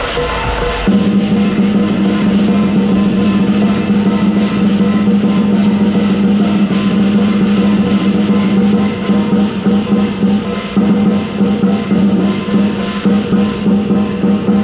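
Lion dance drumming: the big drum rolls fast and steadily with the rest of the percussion from about a second in, then breaks into separate, pulsing beats over the last few seconds.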